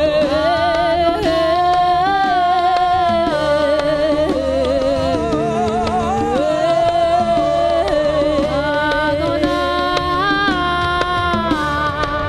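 A live worship band playing, with a singer holding long, wavering notes over the accompaniment.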